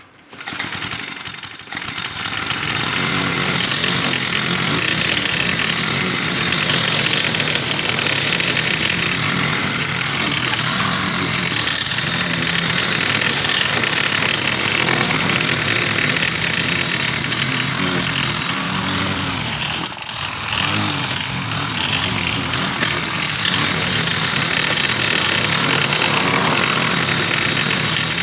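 Petrol lawn mower engine starting, catching after a couple of uneven surges, then running steadily while mowing, with one brief dip in engine sound about twenty seconds in.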